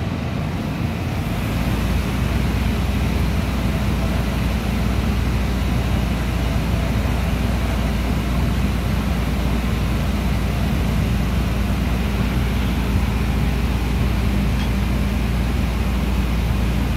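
Drilling rig's hoisting machinery running with a steady low drone while drill pipe is pulled from the well; it gets louder about a second in.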